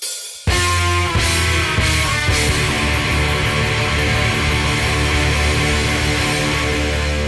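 Intro music: loud rock with distorted electric guitar and drums, kicking in about half a second in after a few cymbal hits.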